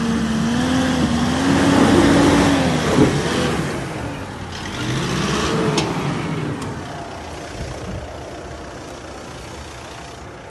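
Off-road pickup's engine revving under load as it crawls over a rocky slope. The engine rises in pitch over the first couple of seconds, then swells again about five seconds in, with a sharp knock around three seconds in. It fades toward the end.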